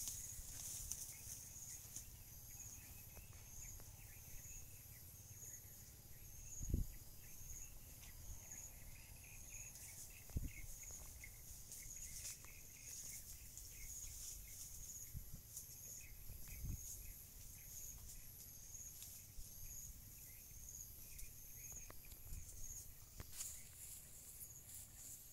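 Insects chirping in a steady high pulse repeating about once a second, faint, over a low rumble. A few short dull thumps stand out, the loudest about seven seconds in.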